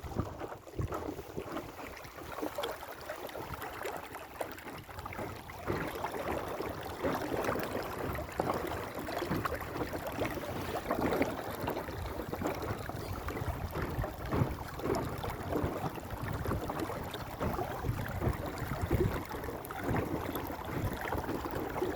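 Water splashing and lapping irregularly against the hull of a small inflatable sailing dinghy under way.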